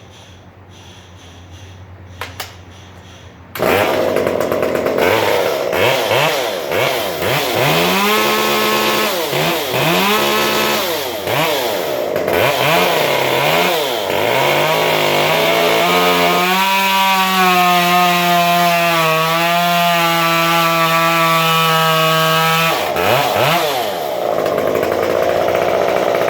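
Stihl MS 193T chainsaw with a West Coast tune and a chisel chain, cutting wood. It comes in suddenly about three and a half seconds in and revs up and down over and over. For the middle stretch it runs steadily at high speed, then drops off near the end.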